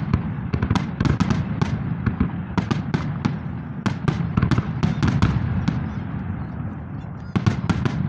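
Fireworks salute: many sharp bangs and crackles of bursting shells in quick, irregular succession over a steady low rumble, easing briefly before a fresh cluster of bangs near the end.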